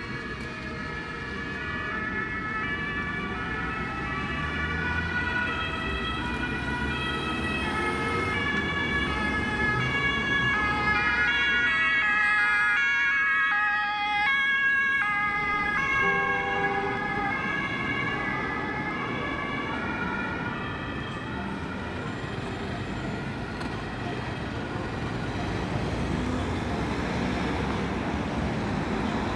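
German two-tone emergency sirens (Martinshorn) from a police car and an ambulance, several alternating two-note patterns overlapping at once. They are loudest around the middle, over the steady rumble of city traffic.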